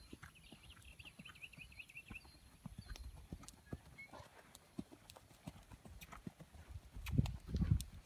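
Horse's hooves thudding on a sand arena at a canter, a steady rhythm of dull beats that grows louder about seven seconds in as the horse passes close.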